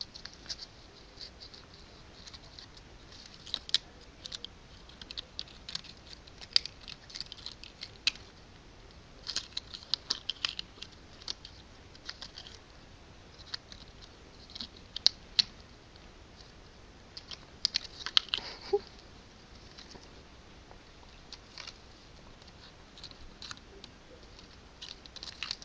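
Irregular light scratching and clicking noises from a cat busy at something. They come in scattered clusters, with brief quiet gaps between them.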